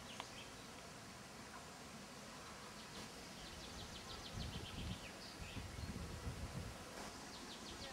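A bird singing a fast run of short high notes, about three and a half seconds in and again near the end, over faint outdoor background hiss. A low rumble joins from about four seconds in.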